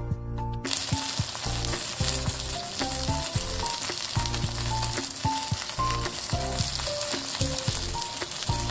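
Butterflied milkfish frying in hot oil in a wok: a steady, dense sizzle that starts abruptly about a second in. A slow background melody plays underneath.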